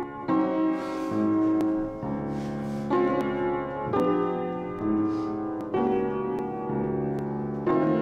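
Kawai upright piano played slowly, a new sustained chord struck about once a second, each ringing on into the next.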